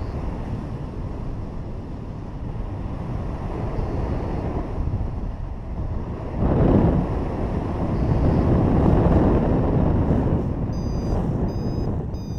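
Airflow rushing over the camera microphone of a paraglider in flight low over the ground on its landing approach, swelling louder about halfway through and again later. A few short high-pitched beeps come near the end.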